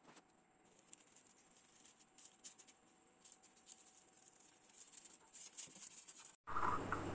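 Faint crinkling and rustling of parchment paper as it is pressed and smoothed by hand into a metal baking tray. The rustles grow busier in the second half. Shortly before the end the sound cuts abruptly to a louder steady low hum.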